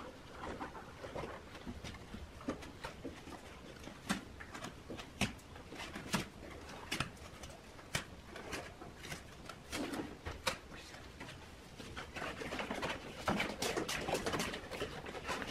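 Cardboard egg trays being handled and pressed into place inside a thin sheet-metal ring mould: scattered light taps, knocks and rustles, busier near the end.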